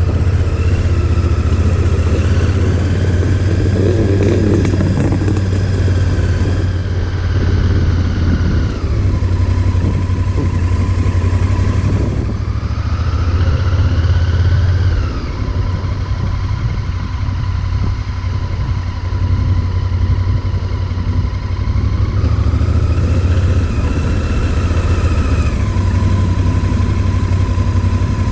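Motorcycle engine running with a steady deep rumble, its pitch rising and falling three times as it is revved and eased off.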